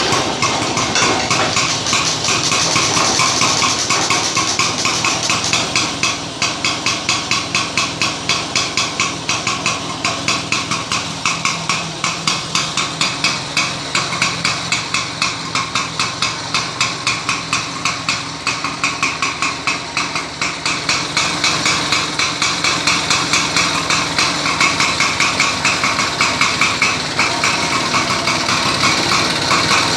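Atco Standard cylinder lawn mower's small petrol engine running steadily, a rapid, even clattering beat of firing strokes.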